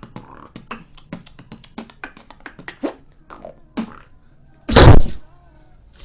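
Beatboxing: a fast run of sharp clicks with low kick thumps, then one very loud burst about five seconds in.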